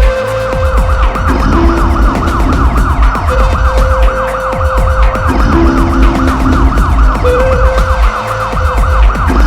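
Electronic dance music: a fast, repeating siren-like synth sweep over held synth notes that change pitch and a heavy bass.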